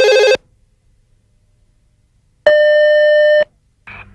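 Electronic telephone ringing: a warbling ring cuts off just after the start, then, after about two seconds of quiet, a second ring sounds for about a second.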